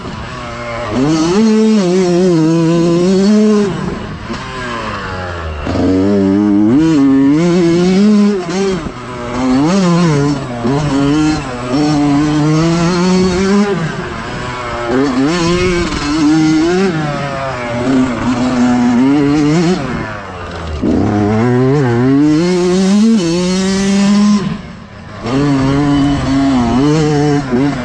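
Yamaha YZ125X two-stroke single-cylinder dirt bike engine under hard riding, its pitch rising and falling over and over as the throttle is opened and closed through the turns, with a short drop off the throttle about twenty-five seconds in.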